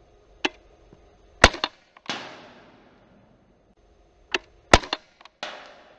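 Umarex Beretta PX4 Storm CO2 air pistol firing two shots, each a sharp crack with a couple of quick clicks. About half a second after each shot comes a metallic hit on the target that rings and fades over about a second.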